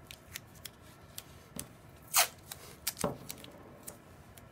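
Masking tape being pulled from the roll and torn into small tabs, with light clicks and paper rustles as the tabs are pressed down. The loudest is a short rip about two seconds in, and a second one comes just after three seconds.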